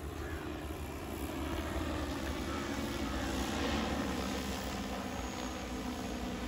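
Multirotor agricultural spray drone flying overhead, its propellers giving a steady hum that swells slightly midway.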